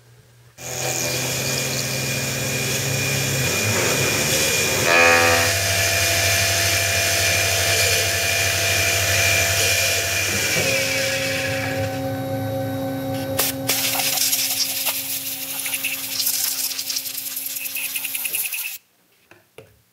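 Grizzly X2 CNC mill's spindle running as an end mill cuts 6061 aluminum: a steady whine with a high hiss of cutting. The tones shift about halfway through, and the sound cuts off suddenly near the end.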